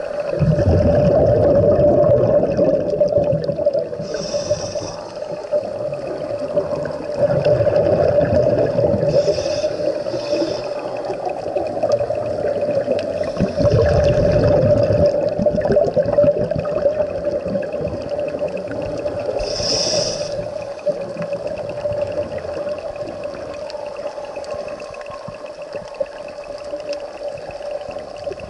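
Underwater ambience of a scuba dive: a diver's exhaled bubbles rumble out every several seconds, with short hissing breaths between, over a steady hum.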